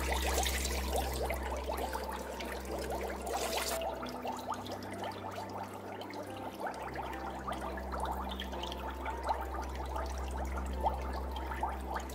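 Bath water in a shallow plastic tub splashing and trickling as a small dog is washed by hand, with water being poured for the first few seconds and stopping abruptly. A steady low hum runs underneath.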